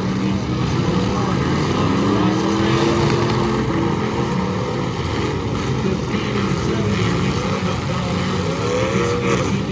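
Demolition derby cars' engines running loudly, revving up and down a few times, mainly about two seconds in and again near the end.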